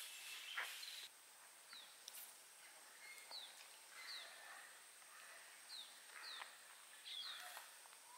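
Faint bird calls: short, high notes that each slide quickly downward, heard about half a dozen times over a steady thin high tone. A soft hiss fades out in the first second.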